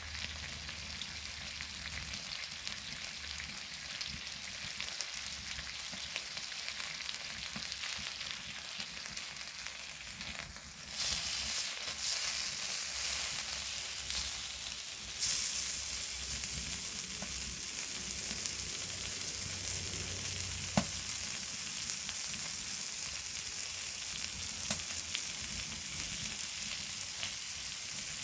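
Pork belly and gopchang sizzling on a hot flat stone set over a gas-canister stove. The sizzle grows suddenly louder about a third of the way in, with a few sharp pops.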